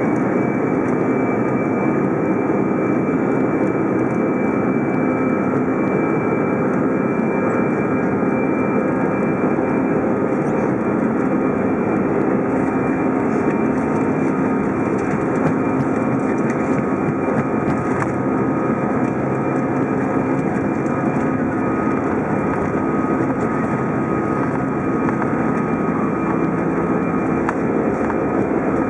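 Airbus A320's jet engines running steadily, heard inside the cabin over the wing as the airliner taxis: an even rush of engine noise with a high whine holding at one pitch.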